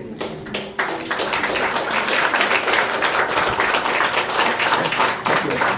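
Audience applauding: many quick, overlapping hand claps that thicken into a steady clatter about a second in.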